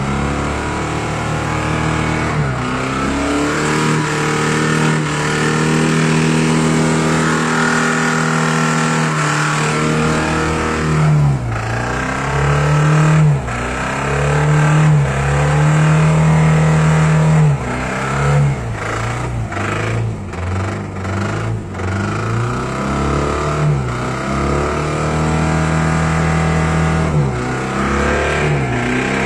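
Knocking car engine being revved hard and held at high revs, the throttle dropping off and climbing again several times in the middle. The engine is already damaged and is being run toward a connecting-rod failure.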